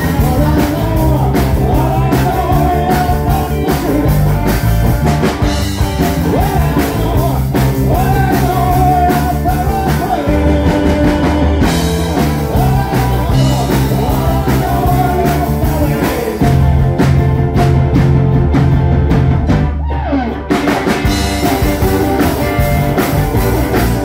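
Live rock band playing: a male singer over electric guitars, keyboards and a drum kit.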